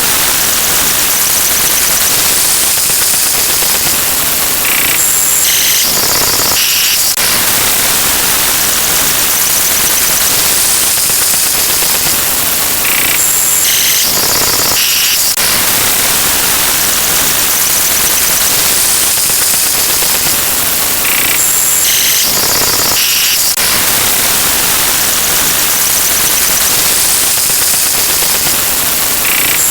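Many sound effects stacked at once into a loud, harsh wall of noise like static, with a cluster of short high beeping tones coming back about every eight seconds.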